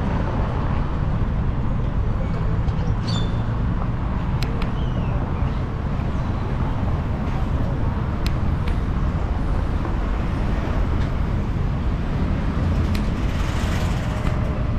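Steady street traffic noise: a continuous low rumble of passing cars and buses on a busy road.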